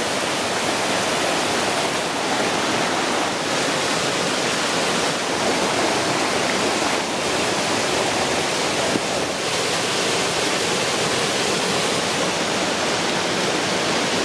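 Waterfall on a stream, the water pouring in a steady, even rush that is quite rowdy.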